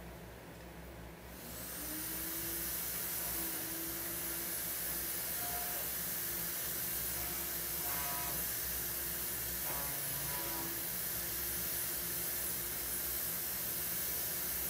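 An electric motor-driven appliance starts up about a second in. It spins up with a rising whine and settles into a steady hiss and whine.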